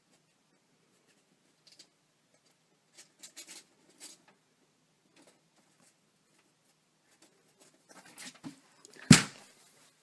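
Scattered faint taps and rustling, then one loud thump about nine seconds in.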